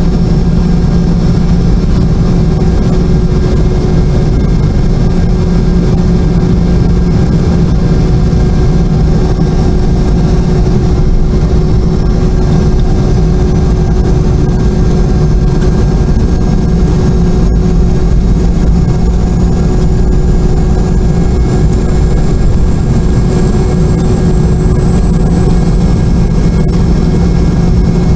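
Inside the cabin of a Boeing 717, its rear-mounted Rolls-Royce BR715 turbofans running at low power while the jet taxis. The sound is a loud, steady low hum with a thin high whine that slowly rises in pitch.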